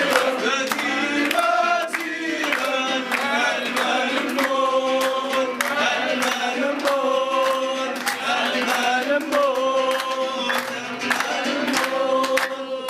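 A man sings into a microphone in long held notes while a crowd claps along in a steady rhythm.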